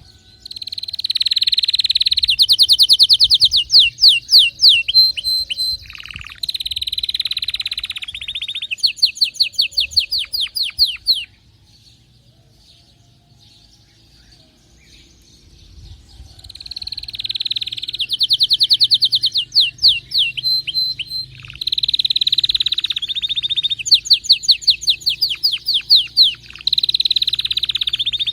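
Canary singing excitedly, in full song: fast trills of rapidly repeated notes and rolling phrases. It sings two long bouts with a pause of about five seconds between them.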